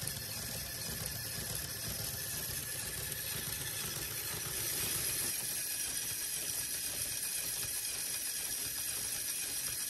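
Lego Technic model of a Citroën 2CV flat-twin engine with working valves, turned by a Lego electric motor and running steadily, a continuous plastic mechanical clatter of moving pistons and valve gear.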